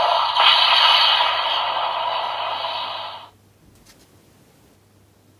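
Electronic sound effect from the DX Valvarusher toy's speaker, playing back a scanned card: a noisy whoosh that fades and cuts off sharply about three seconds in. A few faint clicks follow.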